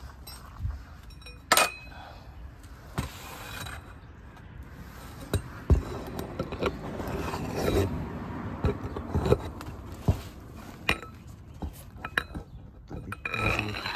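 Metal hand tools clinking, knocking and scraping as a pipe and socket extensions are fitted onto a 3/4-inch drive breaker bar. The sharp knocks come at irregular moments, the loudest about a second and a half in and again near the middle.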